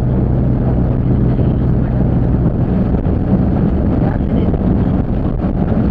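Diesel engine of a Waggon und Maschinenbau railbus running under way, together with the rumble of the train on the rails. A steady low engine hum drops away about two and a half seconds in, leaving rougher running noise.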